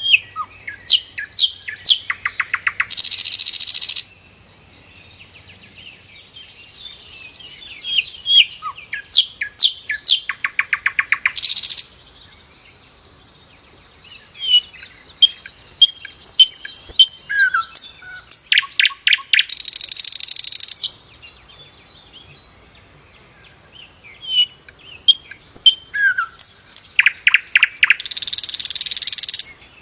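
Sikatan londo flycatcher singing: four bouts, each a string of sharp chirps and short whistles that runs into a loud, fast buzzing trill lasting about a second or more.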